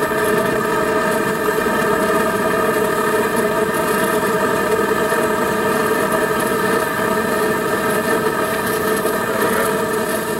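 A steady, engine-like mechanical drone with a cluster of evenly spaced held tones, running unchanged throughout.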